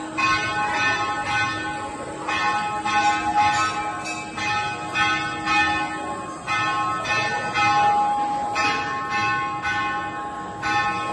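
Temple bell ringing in quick repeated strokes, its metallic tones carrying on between strikes, as during a puja.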